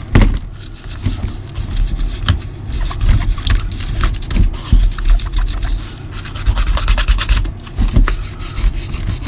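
Stiff brush scrubbing dried, caked mud off the underside of a nitro RC buggy chassis, in quick irregular scratchy strokes.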